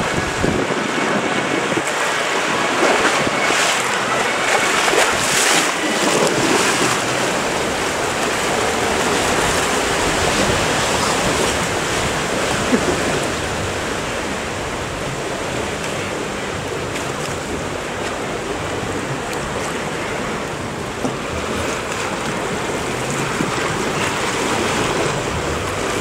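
Rushing, churning water of a river-rapids ride channel swirling around the raft, with wind buffeting the microphone.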